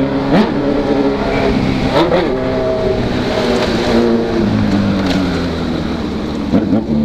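Honda CB1000R motorcycle's inline-four engine being ridden and revved, the engine note rising and falling with the throttle. Three quick throttle blips stand out: one just after the start, one about two seconds in, and one near the end.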